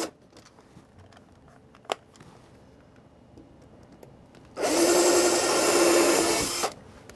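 A cordless drill runs steadily for about two seconds, starting about four and a half seconds in, boring out screw holes in a wooden block. Before that, a single sharp click near two seconds in.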